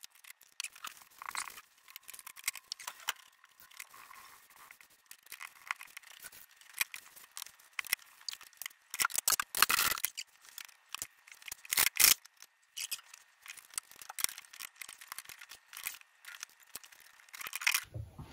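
White plastic conduit pipes being handled and pushed into a four-way plastic conduit junction box on a wooden worktop: irregular plastic scraping, rubbing and clicking, with the sharpest clacks about ten and twelve seconds in.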